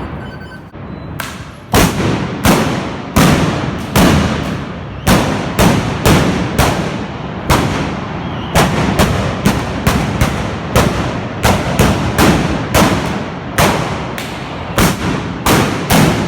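Trabucs (blunderbusses loaded with black powder) firing blank shots in quick, irregular succession, about two a second, each a loud crack followed by a ringing echo. The shots start about a second and a half in.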